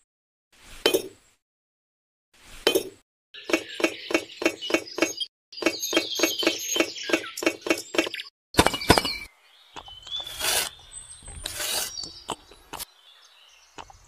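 Miniature bricks clinking and tapping as they are handled and set in mortar, in short separate bursts. In the middle comes a quick run of light taps, about five a second, followed by a few scattered clicks.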